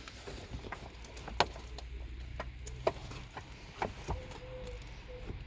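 A few sharp, separate clicks and knocks of a car seatbelt and its plastic trim being handled and pushed into place, the loudest about a second and a half in.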